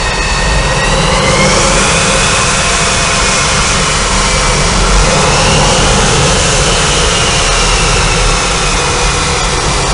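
MiG-29 fighter's twin jet engines running loud and steady on a carrier deck, a high turbine whine over the roar that rises in pitch about a second in and swells again midway.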